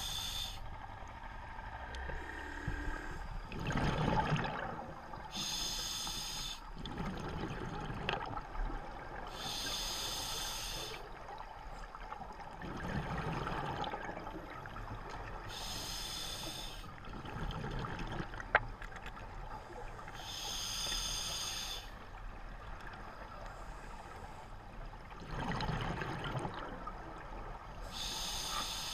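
A scuba diver's own open-circuit regulator, heard underwater: a hissing inhale through the demand valve every four to six seconds, each followed by the low burbling rush of exhaled bubbles. A single sharp tick comes about two-thirds of the way through.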